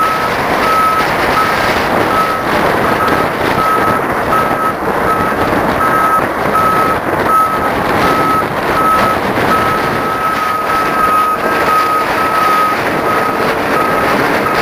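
Kässbohrer snow groomer's reversing alarm beeping steadily, about once a second, over the continuous noise of its running engine as the machine backs up while clearing snow.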